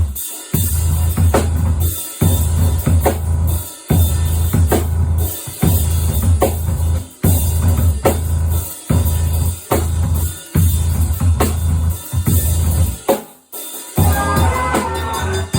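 Experimental noise drum music: hard, noisy drum hits every second or so over a heavy, steady low bass rumble. The sound drops out almost completely for a moment about 13 seconds in, then returns with a busier layer of short pitched tones.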